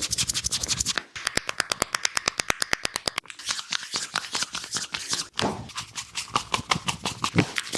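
A barber's hands massaging a head, rubbing and scratching through the hair. From about one to three seconds in there is a fast, even run of sharp clicks, the hair-cracking technique. Scattered clicks and rubbing follow.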